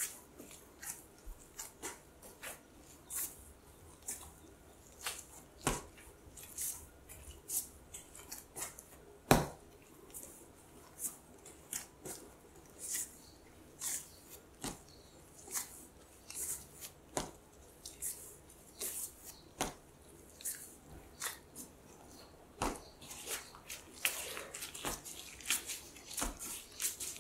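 Soft, sticky bread dough being kneaded by plastic-gloved hands on a wooden board: irregular wet smacks, squishes and light knocks, one or two a second, with one louder knock about nine seconds in.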